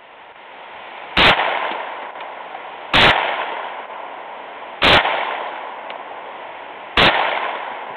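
Walther P22 .22 LR pistol fired from inside a truck: four shots about two seconds apart, each trailing off over a second or so.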